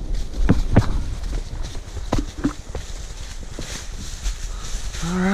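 Horses walking through dry fallen leaves: irregular hoof steps with leaf rustle. A short vocal sound comes near the end.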